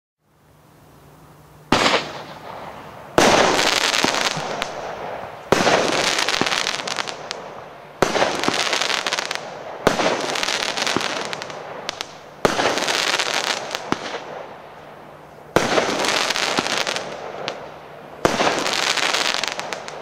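Royal Fireworks 'Sound of Stars' RFC 1436 fireworks cake with 25 mm tubes firing shot after shot: a sharp report every two to three seconds, each followed by about two seconds of dense crackling from the crackling-willow stars as they burn out.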